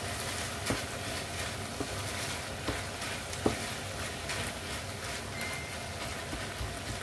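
Ground pork sizzling in a frying pan while a wooden spoon stirs it, with a few short knocks of the spoon against the pan.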